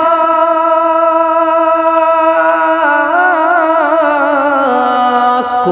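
A man singing a naat solo, holding one long vowel, then stepping down in pitch through wavering, ornamented turns near the end.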